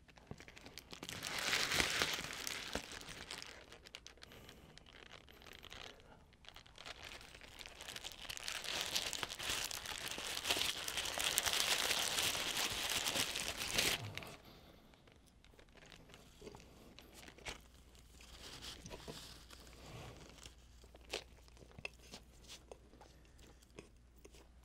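Paper wrapper of a McDonald's cheeseburger crinkling and rustling, loudest about a second in and again from about 8 to 14 seconds in, as the burger is handled in its paper and pushed into the mouth whole. After that come quieter chewing and scattered mouth clicks.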